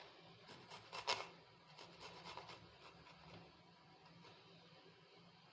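Garlic cloves being grated on a hand grater: faint, short rasping strokes in quick succession, dying away after about three seconds.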